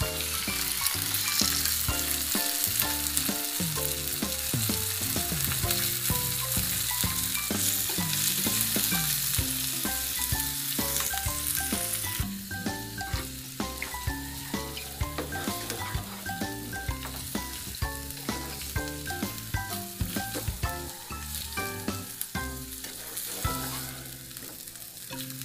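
Raw scallops frying in hot oil with garlic, onion and ginger in a nonstick pan: a loud sizzle as they go into the oil, which drops suddenly to a quieter frying about halfway through, with a plastic spatula clicking and scraping against the pan as they are stirred.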